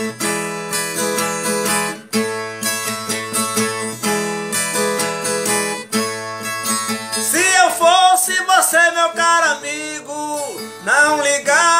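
Viola caipira, the Brazilian ten-string guitar, played in a plucked instrumental introduction, with a singing voice coming in over it about seven seconds in.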